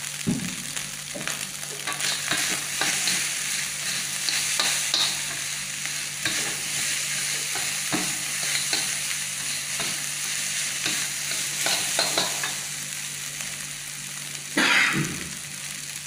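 Metal spatula stirring and scraping fried rice around a wok over a steady frying sizzle, with irregular scrapes and clinks and one louder stroke near the end.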